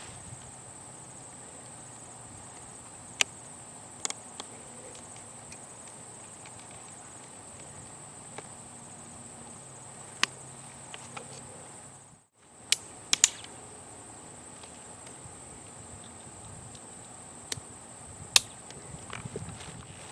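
Steady high-pitched insects trilling, with a few sharp clicks scattered through, the loudest near the end.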